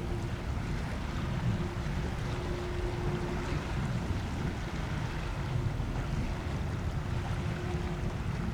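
Steady low rumble with wind rushing on the microphone, and a faint steady hum that fades in and out.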